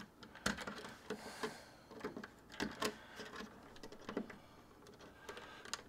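Scattered small plastic clicks and taps at uneven intervals as hands and a screwdriver work at an old Nest thermostat base plate, releasing its wires.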